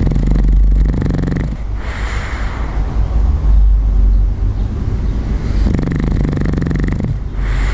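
Bulldog snoring in its sleep: two long pulsing snores about five seconds apart, each followed by a breathy out-breath, over a steady low hum.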